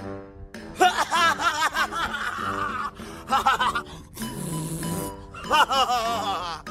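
Background music with a person's wordless vocal sounds over it in three short stretches of quick, wavering, repeated bursts, like laughter.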